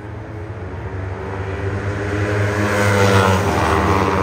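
400 cc sport production racing motorcycles running on the circuit, their engine note growing louder as they approach and loudest about three seconds in.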